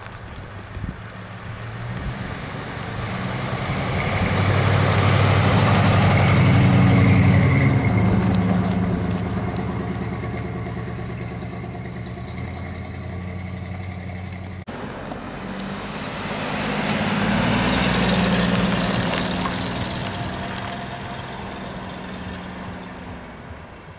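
Classic cars driving slowly past one at a time, each engine note swelling as the car approaches and fading as it draws away. The sound cuts off abruptly about 15 seconds in, and a second car's pass-by follows.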